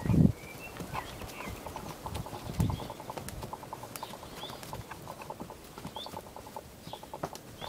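Horses walking on a dirt track, hooves clopping and thudding at an uneven pace, with a low thump near the start and another about 2.6 s in. Small birds chirp briefly in the background.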